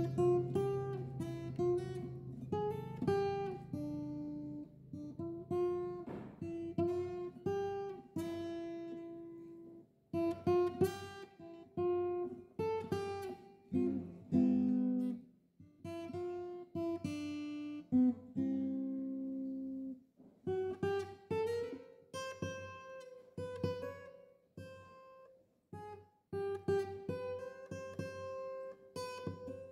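Solo acoustic guitar music: a slow melody of plucked notes and chords, each note ringing and dying away, with short pauses between phrases.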